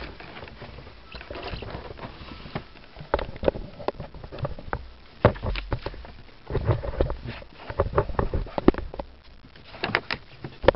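Paper rustling and irregular handling taps and bumps as the pages of a soft-cover paperback manual are leafed through and pressed flat by hand.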